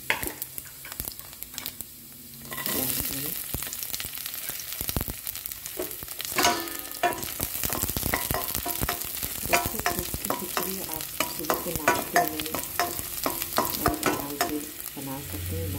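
Cumin seeds and chopped garlic sizzling in hot mustard oil in a stainless-steel kadhai, with a spoon stirring and clicking against the steel. The sizzle comes up about two and a half seconds in.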